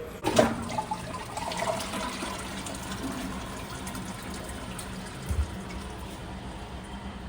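Water running, with a sharp knock just after the start and a low thump about five seconds in.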